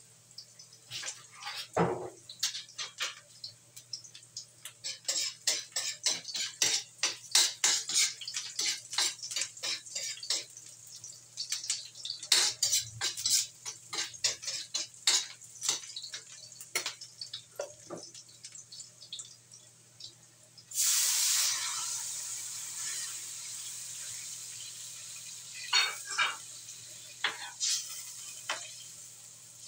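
Metal spatula scraping and clinking against an aluminium wok as aromatics sauté in oil. About two-thirds of the way through, a sudden loud sizzle as coconut milk is poured into the hot wok, slowly settling into a quieter simmer, with a few more spatula clinks near the end.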